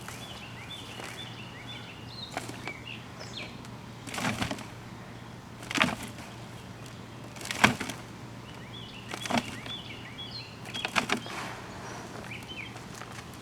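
Hands sifting through a dumped-out tub of potting soil to pick out potatoes: scattered rustles and crunching knocks every couple of seconds. Birds chirp in short repeated calls in two spells in the background.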